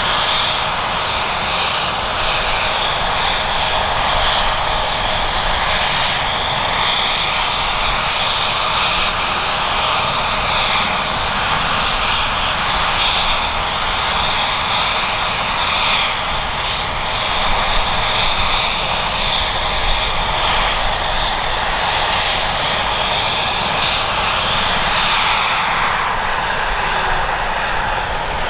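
Airbus H135 P3 helicopter's twin Pratt & Whitney PW206B3 turboshaft engines running steadily on the pad after landing: a constant turbine whine over a loud rush.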